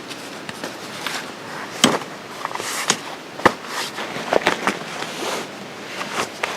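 Footsteps crunching on dry ground, mixed with a few sharp knocks, the loudest about two seconds in.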